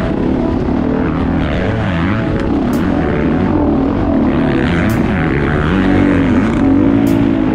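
Several off-road motorcycle engines running at once, their pitch rising and falling as the throttles are worked.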